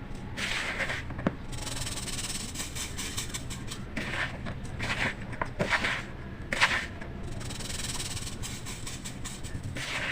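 Chunks of yellow-dyed baking soda being crumbled: soft, powdery crunching that comes in a run of separate squeezes, with a few sharp crackles among them.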